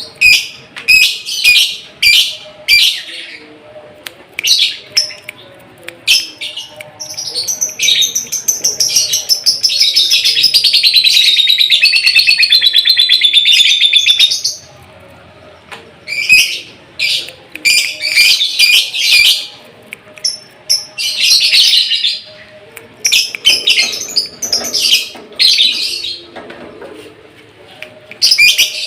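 A moulting lovebird singing in bursts of sharp, high chirps, with one long unbroken rapid trill lasting about seven seconds near the middle.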